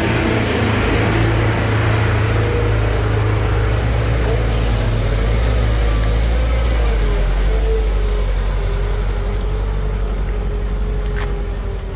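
Heavy diesel engine running steadily, a loud deep drone that fades somewhat near the end, with a faint thin whine wavering above it in the second half and a single click near the end.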